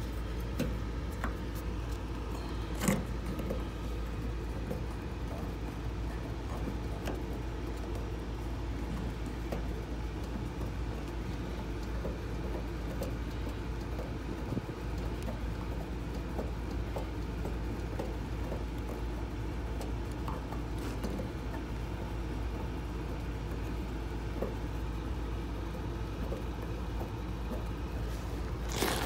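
Steady low rumble with small metallic clicks from handling an Appion valve-core removal tool on a brass service valve, one sharp click about three seconds in and another at the end.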